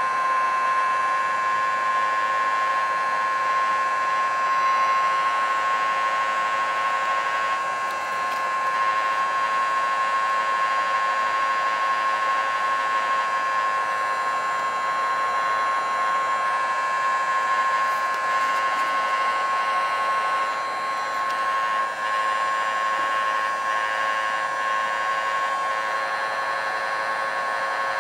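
Heat gun running steadily: an even rush of air with a steady high whine from its fan motor.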